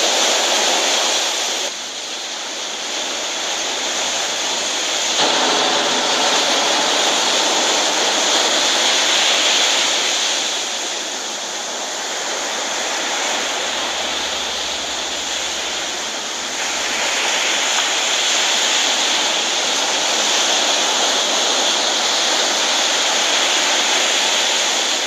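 Ocean surf breaking and washing up the beach, a steady rushing noise whose loudness changes abruptly a few times.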